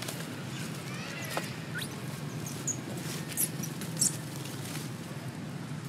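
An infant macaque giving several short high-pitched squeaks, the loudest about three and a half and four seconds in, over a steady low hum and a light rustle of dry leaves.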